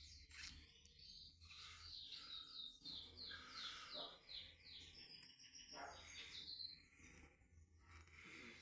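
Pet bird chirping softly, with a quick run of short repeated chirps between about two and five seconds in.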